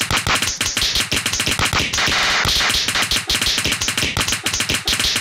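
Rapid, dense tapping and clicking, many sharp strokes a second without a break.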